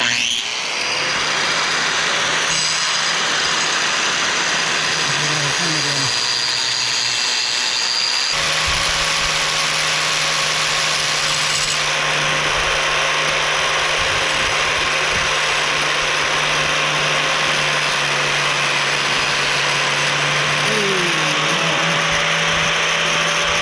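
Homemade lathe spinning a 25 mm steel bar as it is turned down to size. A power-tool whir with a dense metal-cutting hiss starts suddenly and runs steadily, and its tone shifts about eight seconds in.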